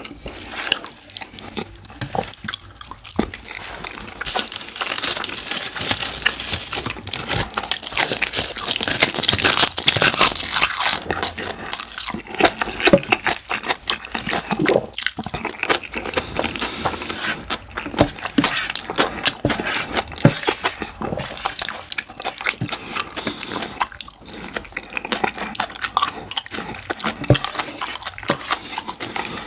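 Close-miked wet eating sounds: chewing and smacking through mouthfuls of rice mixed with jajang and curry sauce, a dense run of small wet clicks and crackles.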